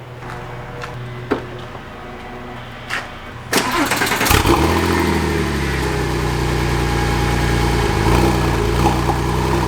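A couple of short clicks, then about three and a half seconds in the Porsche 996 Turbo's twin-turbo flat-six cranks briefly and fires right up, settling into a steady idle. This is a cold start after sitting overnight with no long cranking, the sign that the hard-start fault, which turned out to be fuel-pressure related, is cured.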